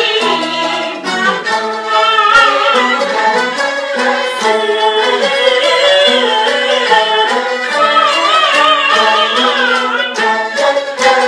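Peking opera accompaniment: a jinghu fiddle playing a quick bowed melody with vibrato.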